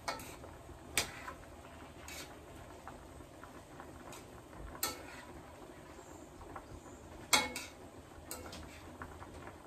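Metal spatula stirring a meat and vegetable mixture in a skillet, clinking and scraping against the pan every second or two, the loudest clink about seven seconds in.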